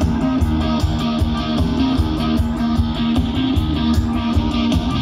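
Live rock band playing: electric guitars, bass guitar and drums with a steady beat.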